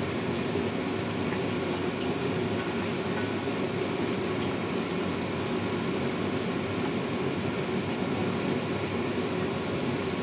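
Whole potatoes, salted and coated with turmeric, sizzling steadily as they fry in hot oil in a kadai, browning on the outside.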